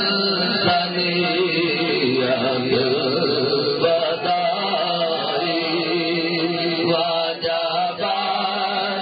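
Men's voices chanting a devotional recitation together, a continuous wavering melodic line held without pause.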